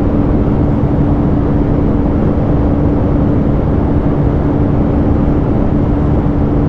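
Bajaj 125cc single-cylinder motorcycle engine held at high revs near top speed, a steady drone under loud, even wind rush.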